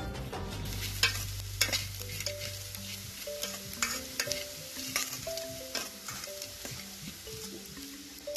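Dried omena (small fish) frying in oil in an aluminium pot: a spoon stirring and scraping against the metal with scattered sharp clicks over a soft sizzle. Soft background music with held notes plays underneath.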